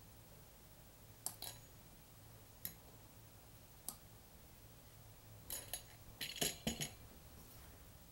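Light metal clicks and clinks from a pizza-cutter wheel cutting fondant on a mat: a quick pair, then two single clicks, then a tight cluster of clinks near the end as the cutter is handled and put down.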